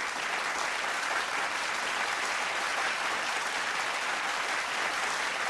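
Audience applauding steadily after a choir's song.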